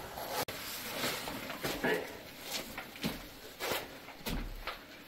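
Irregular scuffs and scrapes of hikers' shoes on sandstone and grit while scrambling, with cloth rustling and faint voices.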